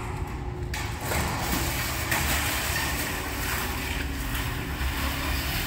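A motor vehicle's engine running steadily, with a hiss of road or wind noise that comes in about a second in.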